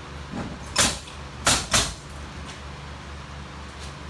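Nailing into framing lumber: three sharp strikes, the first a little under a second in and two close together about half a second later, over a steady low hum.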